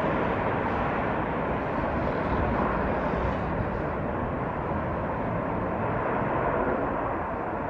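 F-35A's single Pratt & Whitney F135 afterburning turbofan at takeoff power: steady jet noise through the takeoff roll and lift-off, easing slightly toward the end.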